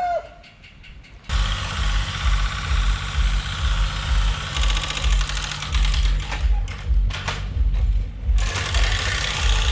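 Excavator's diesel engine working as it digs out a tower's concrete anchor footing. It comes in suddenly about a second in and runs loud with a low, uneven throb.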